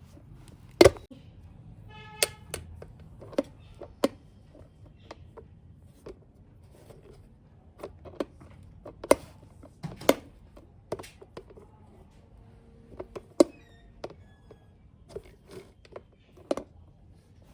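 Small plastic toy pieces being handled and set down: irregular sharp clicks and taps, the loudest just under a second in and around the middle, with a brief high ringing tone about two seconds in.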